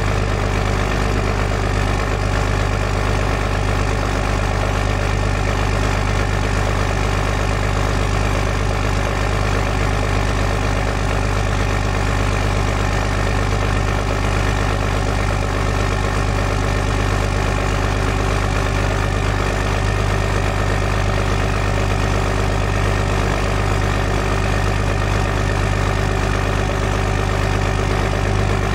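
2007 Dodge three-quarter-ton's 5.9-litre Cummins straight-six turbodiesel idling steadily through 7-inch exhaust stacks, shortly after a cold start at about −14 °F.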